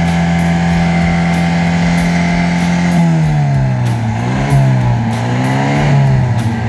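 Off-road buggy engine being warmed up and held at high revs, steady for about three seconds. The revs then fall and climb again several times.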